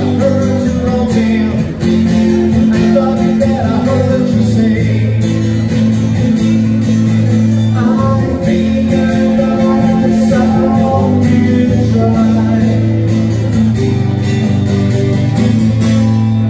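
Rock band playing live, with guitar to the fore.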